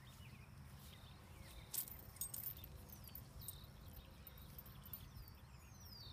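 Quiet outdoor sound of a horse being bridled: faint clinks of the bridle's metal bit and buckles being handled, with a few sharp clicks about two seconds in. A low steady rumble runs underneath, and birds give a few thin falling whistles.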